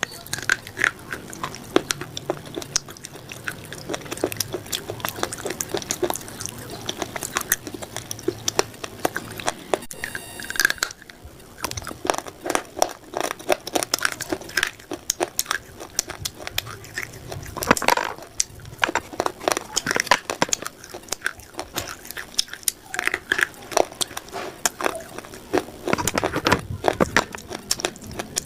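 Close-miked biting and chewing of a dry, crunchy food: a dense run of sharp crunches with short pauses between bites.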